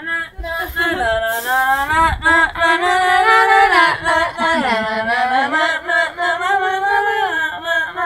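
People singing loudly, unaccompanied, in a drawn-out tune with long held notes.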